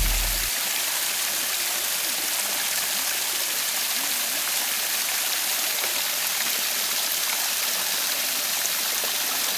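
Small shallow stream running and splashing over stones: a steady, even rush of water.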